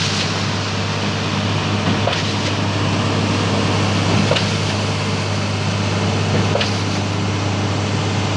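Concrete mixer truck's diesel engine running steadily with a low hum, with a faint knock about every two seconds.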